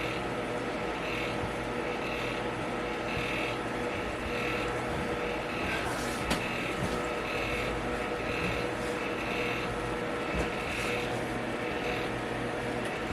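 Electric fan running steadily: a constant drone with a steady hum. A single sharp click sounds about six seconds in.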